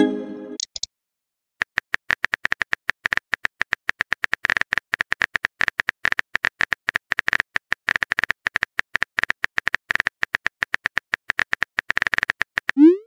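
Phone keyboard typing clicks, a rapid uneven run of key taps as a text message is typed out, starting about a second and a half in. A short chime fades at the very start, and a quick rising swoosh of a message being sent comes right at the end.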